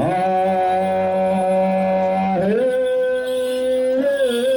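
Group chant-singing for a Puyuma line dance: voices come in together on a long held note, then step down to a lower held note about halfway through.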